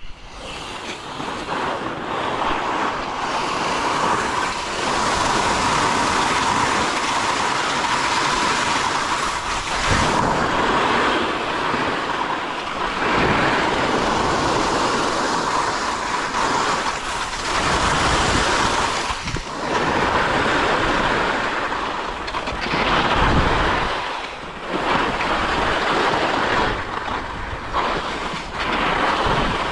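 Skis hissing and scraping over snow, with wind rushing on the microphone, the noise swelling and fading with a few brief dips.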